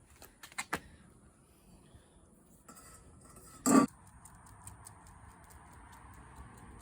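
A few light clicks, then one louder, short clink of hard objects a little under four seconds in, followed by a faint steady hiss.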